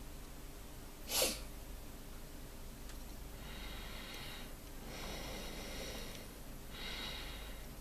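A person breathing through the nose close to the microphone: a short sharp sniff about a second in, then three slow drawn-out breaths in the second half, over a low steady hum.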